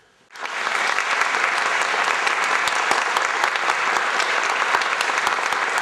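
Audience applauding: the clapping starts suddenly just after the start and keeps up steadily, thick with individual claps.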